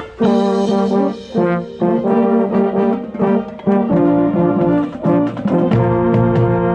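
Marching band brass playing, with a baritone horn right at the microphone. The band comes in suddenly just after the start and plays in short phrases broken by brief gaps; near the end lower notes and percussion taps join in.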